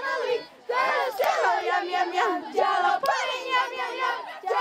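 A group of girls singing or chanting a camp song together in many voices, with a brief break about half a second in.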